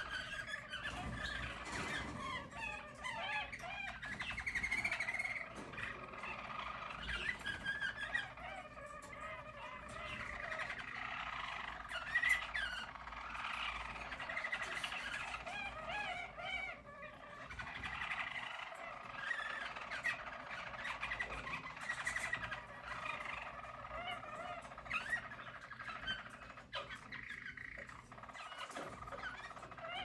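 Harz German Roller canaries singing: an unbroken stream of rolling trills and warbles.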